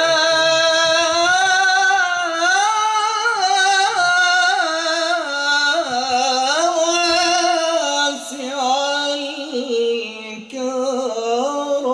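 A man's voice singing an Islamic nashid solo, holding one long melismatic line that winds up and down in pitch, with a short break near the end.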